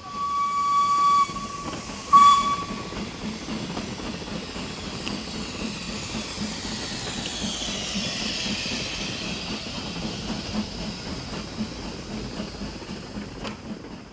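Steam locomotive whistle: one blast of about a second, then a louder short blast about two seconds in. Steady steam hissing follows, with a faint regular chuffing beat.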